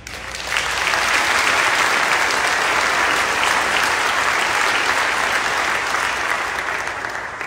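Audience applauding, the clapping building within the first second and tapering off near the end.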